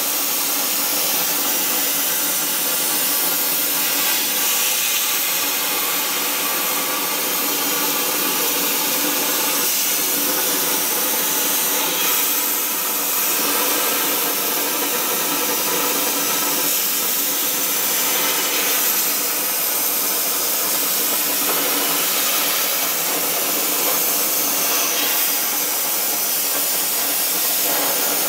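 Arcdroid CNC plasma cutter's torch cutting thin 2 mm metal sheet: the plasma arc gives a loud, steady hiss that does not break as the torch travels along the cut.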